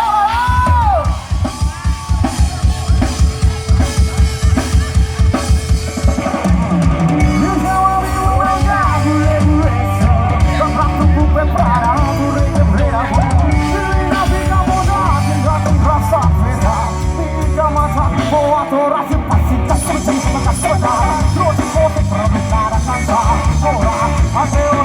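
Band music with a drum kit keeping a steady beat, bass and guitar, and a singing voice carrying the melody. The drums come in just after the start and drop out for a moment near the end.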